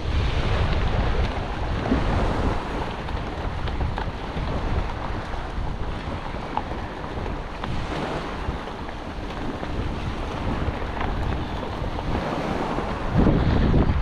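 Wind buffeting the microphone over shallow surf washing and splashing along the shoreline, with a stronger gust near the end.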